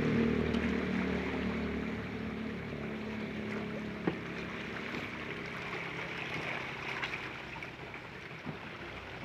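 Sea water washing and lapping among shoreline rocks, with a low hum that is loudest at the start and fades over the first couple of seconds. A single sharp click about four seconds in.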